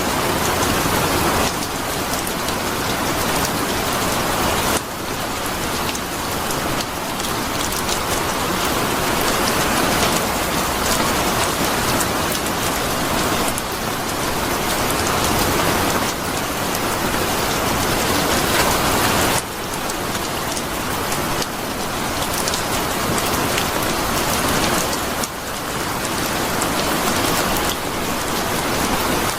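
Steady rain falling, a dense hiss with individual drop ticks through it. The level changes abruptly every few seconds.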